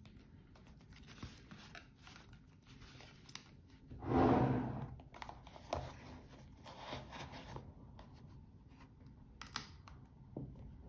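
Hands handling a mesh-band watch, its paper tag and its presentation box: rustling and crinkling, with one much louder rustle about four seconds in, and light knocks near the end as the lid is fitted onto the box.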